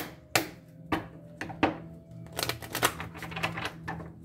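A deck of cards being shuffled by hand, a run of sharp card snaps and rustles that comes thickest about halfway through, over faint background music.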